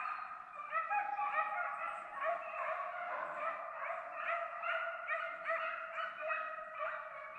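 A pack of beagles baying on a deer's track: several dogs' voices overlapping in a continuous chorus of short, falling cries.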